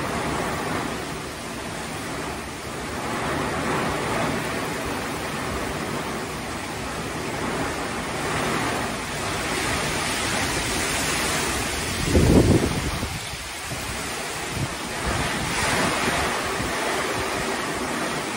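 Heavy tropical-storm rain pouring onto a swimming pool and yard, its hiss swelling and easing with the wind gusts. About twelve seconds in, a strong gust hits the microphone with a loud low rumble.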